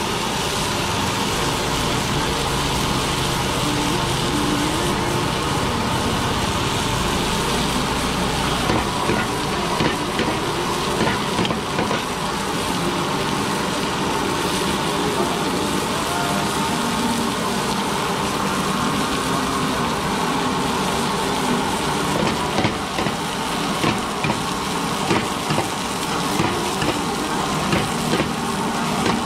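Breaded cutlets sizzling on a flat-top griddle and food frying in a pan, with metal utensils clicking against the pan now and then, more often near the end.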